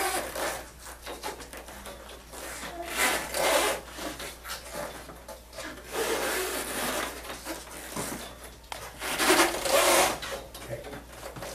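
Scuffing and rubbing from slow steps taken in full-leg braces (KAFOs): shoes dragging and scraping on the floor, in four drawn-out bouts about three seconds apart.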